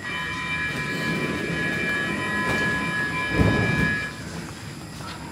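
Stockholm metro train at the platform giving a high, steady chord of several tones for about four seconds over a low rumble. A loud low thump comes about three and a half seconds in, just before the tones cut off.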